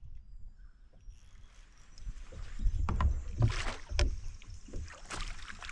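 Water splashing and knocking as a large flathead thrashes and is scooped into a landing net beside a plastic kayak. After a quiet start there is a run of sharp splashes and knocks from about two seconds in.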